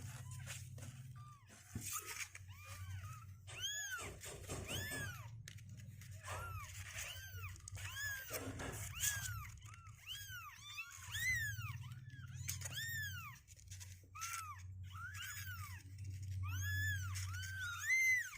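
Two-week-old kittens mewing over and over, a rapid string of short, high-pitched cries that rise and fall, one to two a second, sometimes overlapping.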